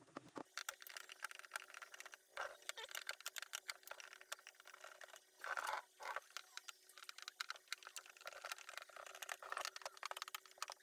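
Faint, rapid small clicks and ticks of hands and a tool working on a Bluetooth speaker's plastic casing, as when unscrewing its back, over a faint steady hum. A brief louder scraping noise comes about five and a half seconds in.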